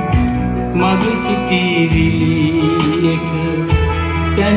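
Recorded music with guitar, played from a vinyl record through a Sansui AU-D707G Extra amplifier and Energy C6 loudspeakers and heard in the room.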